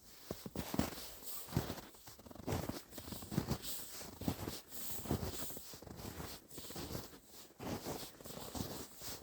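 Footsteps crunching through snow at a steady walking pace, about one step a second.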